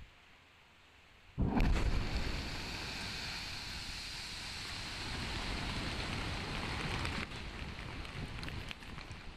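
Rock blast in a drilled quarry face: a sudden boom about a second and a half in, followed by a long rumble and rattle of rock and debris coming down, which thins out to scattered stone clicks near the end.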